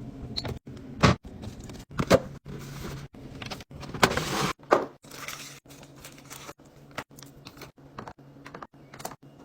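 Containers and packaging being handled and set into a fridge: a run of short knocks, clinks and clatters with rustling in between, over a steady low hum.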